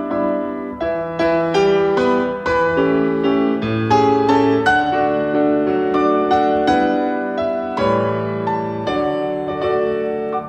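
Background piano music: a gentle melody of struck notes over lower chords.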